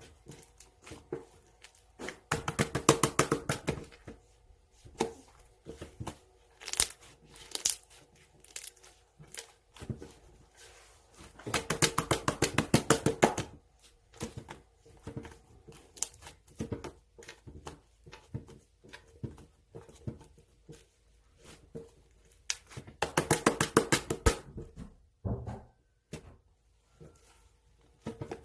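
Wrappers of Maychew chewy candies crinkling and tearing as they are handled, in three longer bursts of rapid crackling with scattered single crinkles between.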